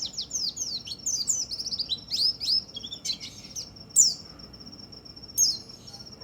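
White-eye (pleci) singing: a rapid warbling run of high, down-slurred chirps for about three seconds, then a few sharp single calls around four and five and a half seconds in. A thin, steady high whine runs underneath.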